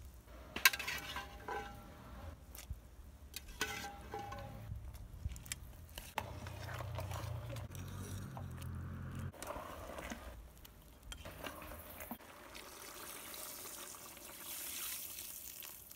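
A metal spoon stirs a stew of turkey neck and red kidney beans in an aluminium pot, clinking against the pot several times in the first few seconds; the loudest clink comes about a second in. Near the end, liquid is poured into the pot with a steady splashing hiss.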